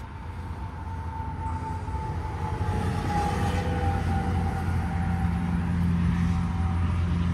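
A motor vehicle's engine hum growing steadily louder as it draws near, with a faint high whine slowly dropping in pitch.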